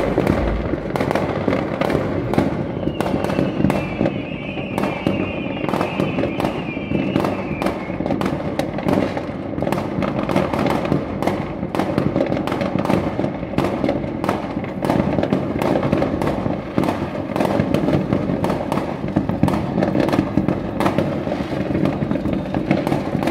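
Many fireworks going off at once: a dense, unbroken run of bangs, pops and crackles. A wavering whistle rises over it from about three seconds in, fading out about five seconds later.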